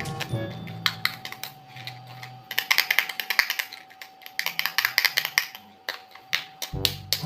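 Quick runs of sharp plastic clicks and rattles, typical of toy parts being handled and snapped together, loudest in two bursts a few seconds in. Background music fades out at the start and comes back in near the end.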